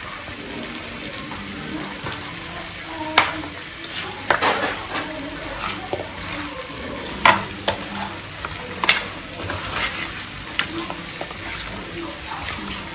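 Metal kitchen pots and utensils clattering and knocking in irregular sharp hits over a steady hiss, as food is handled and stirred in a pan.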